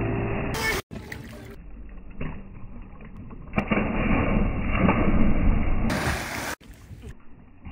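Water splashing as people jump from a boat into a lake, over a steady rushing noise. It grows louder in the second half, and the sound cuts out abruptly twice.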